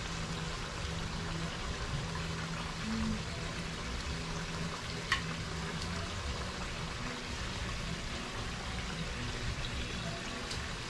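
Pot of curry masala simmering steadily as pieces of raw gilbaka fish are laid into it, with one sharp click about five seconds in.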